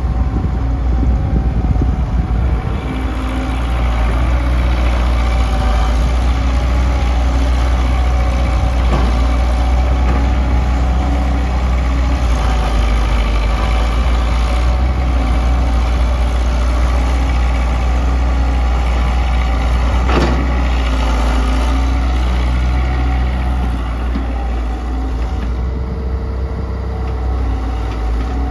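Diesel engine of a Kobelco SK100-1 hydraulic excavator running steadily at work, its pitch shifting now and then as the load changes, with a few faint knocks.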